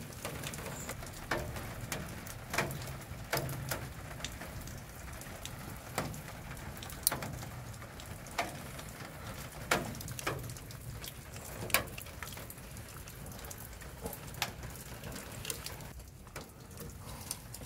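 Steady rain falling, with scattered sharp clicks and taps from pliers and wires being worked at a plastic electrical box.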